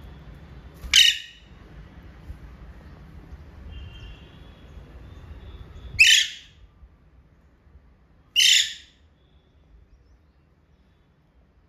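Alexandrine parakeets giving three loud, harsh screeches a few seconds apart, with a few faint soft chirps between them.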